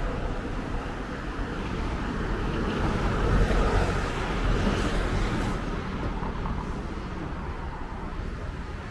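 Street traffic noise with a steady low rumble, swelling as a vehicle passes about three to five seconds in.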